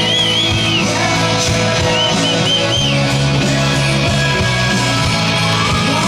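Loud rock music with singing, high sliding vocal or guitar lines near the start and again about two seconds in.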